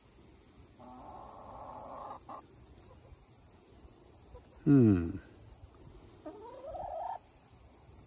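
Domestic hens calling: a low rough churr about a second in, a louder falling call about halfway through and a short rising call near the end, over a steady high chirring of insects.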